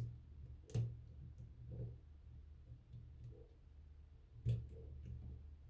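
A few faint, scattered clicks of lock picking tools working inside a Smith & Locke closed-shackle padlock: one at the start, one just under a second in, and another about four and a half seconds in.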